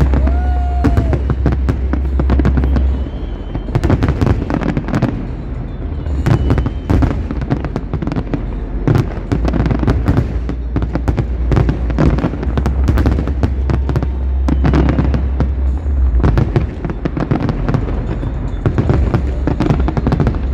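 Large aerial fireworks display: shells bursting in quick, overlapping bangs and crackles, over a steady low rumble.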